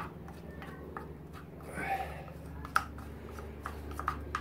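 A wooden stick stirring a thick paste of fine sanding dust and wood sealer in a small tin can, scraping, with several sharp clicks as it knocks the can's sides, most of them near the end.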